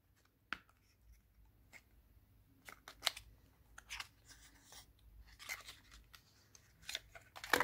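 Faint, irregular clicks and crinkles of a plastic powder blush compact and its packaging being handled.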